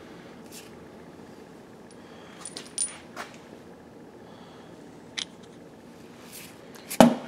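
Scattered faint metal clinks as a stuck connecting-rod cap on a Case 336BD diesel engine is worked by hand against its loosened bolts, with a sharper knock near the end. The cap is held snug, which the owner puts down to the bearing having swelled in its bore.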